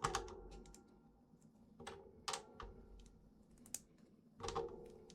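Plastic Lego minifigure parts being pressed and snapped together by hand: several faint clicks and knocks at irregular intervals.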